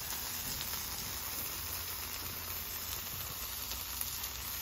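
Butter and shredded hash brown patties sizzling steadily on a hot flat-top griddle.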